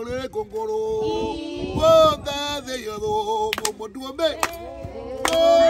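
Singing, with long held notes.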